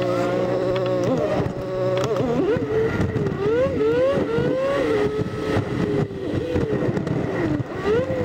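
Smart Roadster Coupé's three-cylinder engine, heard from inside the car and sped up eight times into a high buzzing drone. It starts as a steady hum while the car waits in traffic. From about two seconds in it turns into quick, repeated rising and falling sweeps as the car pulls away and changes gear.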